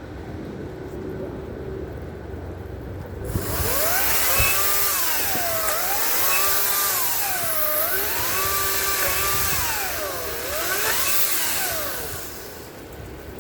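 Ryobi 40-volt brushless electric chainsaw cutting through branches. It starts a few seconds in with a loud motor whine over the hiss of the chain. The whine rises and falls in pitch about four times as the chain bites into the wood and frees up again, then stops near the end.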